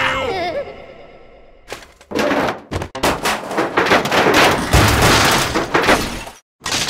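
Cartoon sound effects of a rat scrambling through a metal drainpipe: a fast, loud run of banging and rattling from about two seconds in, with a heavy thump near the middle, cut off near the end. It opens with the fading tail of squealing cartoon voices.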